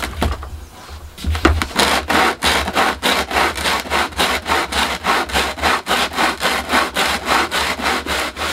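The cut edge of a cyclekart nose cone being rubbed back and forth on sandpaper stuck to a timber board, about four rasping strokes a second, starting about a second in. This trues the rough cut edge down to one flat plane.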